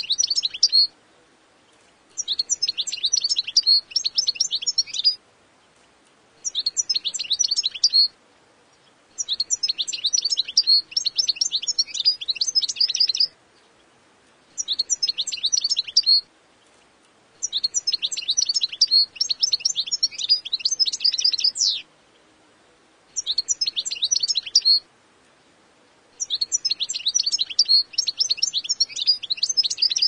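European goldfinch singing: eight bursts of rapid, high twittering notes, each one to four seconds long, separated by pauses of about a second.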